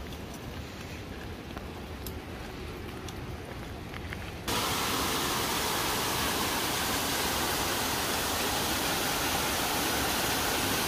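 A low steady rumble, then, about four and a half seconds in, a sudden switch to the loud, steady rush of a waterfall.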